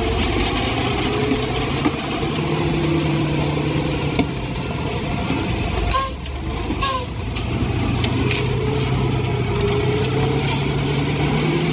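Heavy machine's diesel engine running steadily throughout, with several short hisses over it.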